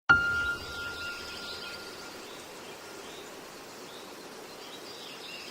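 A single ringing, bell-like note struck right at the start, fading over about two seconds, over a steady hiss with faint high chirps.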